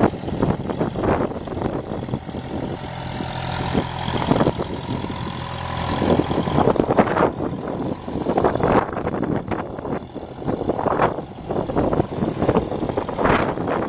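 The 76 hp Deutz diesel engine of a 2007 Vermeer RT650 trencher running steadily, with irregular swells of rushing noise over it.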